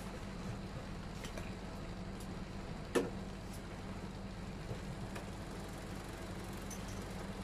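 Steady low electrical hum, with one sharp click about three seconds in and a few faint ticks from handling.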